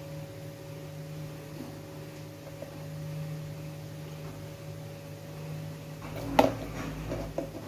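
A steady mechanical hum with a low and a higher held tone. About six and a half seconds in there is a single sharp knock, followed by a few faint clicks.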